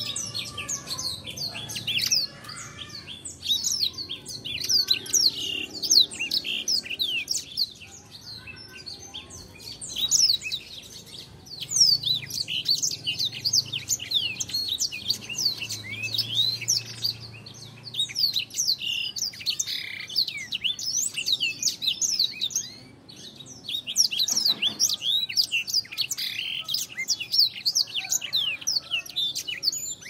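Black-throated canary singing a long, fast run of high twittering and chirping notes, with short breaks about eight seconds and about twenty-two seconds in.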